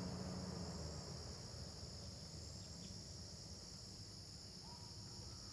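Steady, high-pitched chorus of crickets and other insects in the field, with a low rumble that fades over the first second or two.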